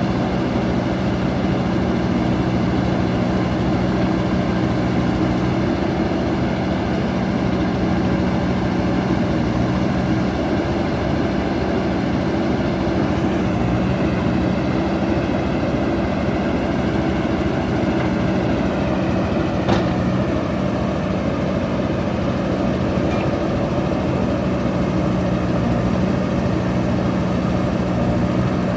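JCB backhoe loader's diesel engine running steadily, its pitch shifting slightly a few times, with one sharp metallic knock about two-thirds of the way through.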